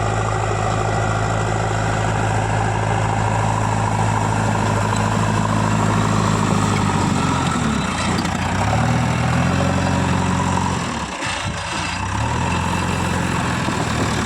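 JCB 3DX backhoe loader's diesel engine running as it works, its pitch dropping and then climbing again as the revs change about seven to nine seconds in, with a brief dip near eleven seconds before it settles back to a steady run.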